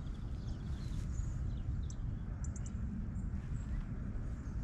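Wind rumbling on the microphone, with small birds giving short high chirps and calls now and then over it.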